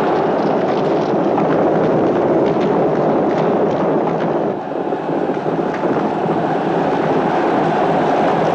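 Horse-drawn chariots racing: many horses galloping and chariot wheels rumbling in a loud, dense, steady din, with sharp clatters scattered through it and a brief dip about four and a half seconds in.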